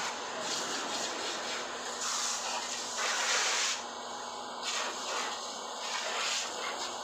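Water spraying from a hose nozzle onto a car body: a continuous hissing spray that rises and falls in loudness.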